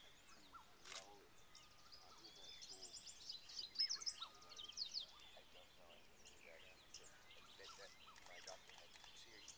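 Faint bush birdsong: several birds chirping and trilling in short high-pitched phrases, busiest about three to five seconds in.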